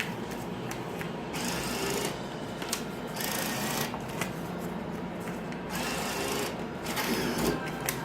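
VLT bill acceptor motor whirring in several short runs of about a second each as banknotes are drawn into the machine.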